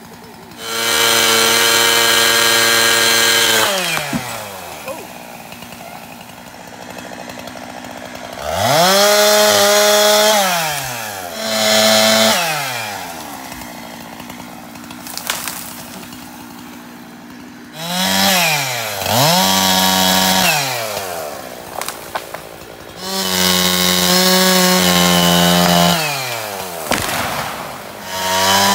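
Gas chainsaw revving hard in about six bursts of two to three seconds each, its pitch climbing at each burst and sliding back down to a steady idle between them.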